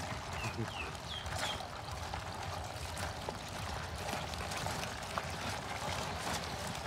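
Live crabs scrabbling over each other in a plastic bucket, a faint steady crackle of legs and shells scratching the plastic, with a few sharp ticks.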